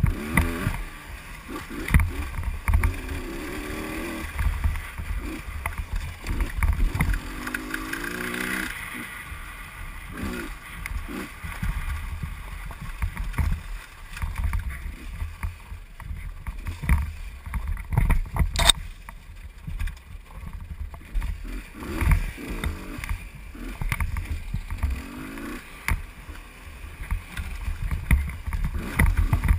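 Husqvarna WRE125 two-stroke single-cylinder engine revving up and down as the dirt bike is ridden along a rough trail. Heavy rumble and knocks from wind and bumps on the helmet-mounted camera's microphone, with one sharp click about two-thirds of the way through.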